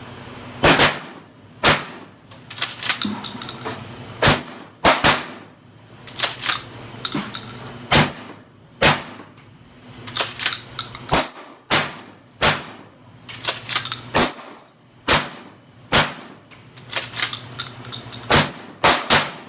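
DP-12 double-barrel pump-action 12-gauge shotgun being shot: two sharp shots about a second apart, one from each barrel. Each pair is followed by a clatter of the pump being racked back and forward to chamber the next two shells, six pairs in all.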